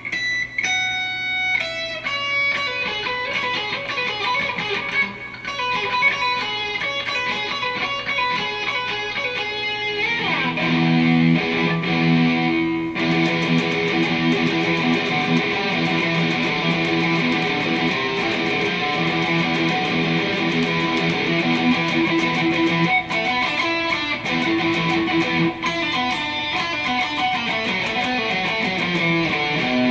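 Telecaster electric guitar through an overdriven Marshall amp: single picked lead notes for about the first ten seconds, then heavier sustained chords with strong low notes, with a few brief breaks.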